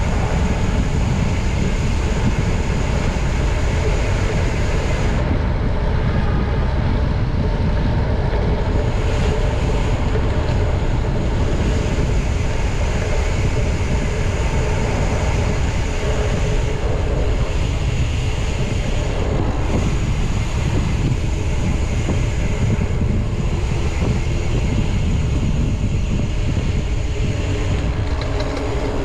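Steady wind rush on the microphone and road noise from riding a bicycle through city traffic.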